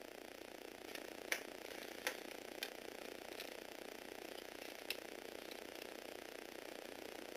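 Small electric gearbox motor (a Tomy Aero Spider unit) whirring steadily as it drives the plastic Lego Technic gears and tracks, with a few sharp plastic clicks in the first five seconds.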